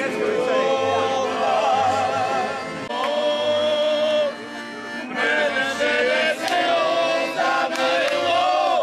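A group of men singing loudly together in long, wavering held notes, accompanied by a piano accordion.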